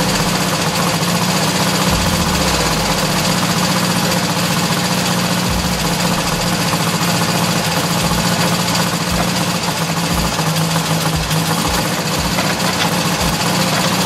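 1972 VW Super Beetle's air-cooled flat-four engine running steadily, freshly started after sitting a long time on old gas dosed with fuel treatment.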